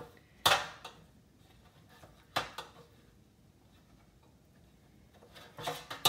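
Metal rotisserie spit rod and prong forks clanking against a stainless steel drip tray as a roast is handled on the spit. There is a sharp clank about half a second in, another about two and a half seconds in, and a quick run of clinks near the end.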